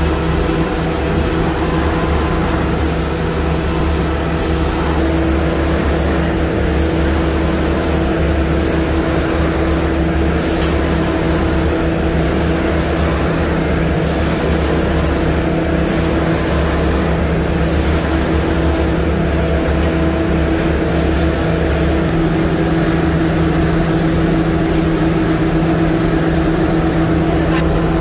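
Automatic spray-painting machine running: a steady machine hum with the spray gun's high hiss switching on and off about every one and a half to two seconds as it makes its passes. The spray hiss stops about two-thirds of the way through, leaving the hum.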